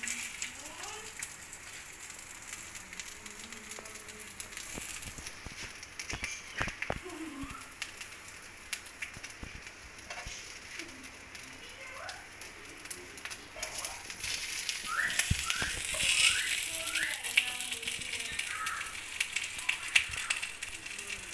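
Light crackling and sizzling of beef steaks cooking on a hot tawa, with scattered bird chirps, including a quick run of four rising chirps about two-thirds of the way through.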